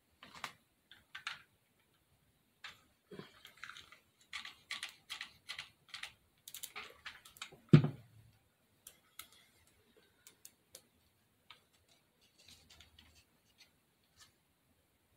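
Light clicks and rustles from handling a hot glue gun and a foam craft shape, coming thick for a few seconds, with one thump about eight seconds in, the loudest sound, then only a few scattered ticks.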